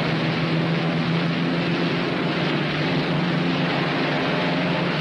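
Steady drone of the Northrop P-61 Black Widow's twin Pratt & Whitney R-2800 radial engines running during the pre-takeoff check, under a heavy, even hiss.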